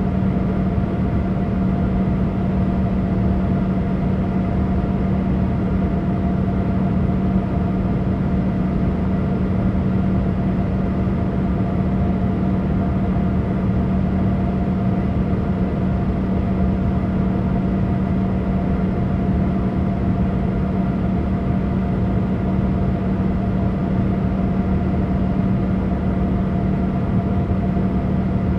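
Steady cabin noise inside a Boeing 787 airliner: a constant rush of engine and airflow noise with a steady low hum, unchanging throughout.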